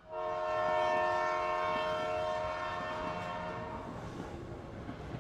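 Train horn sounding one long chord of several tones. It starts suddenly and fades out after about four seconds, with the noise of a passing train beneath and after it.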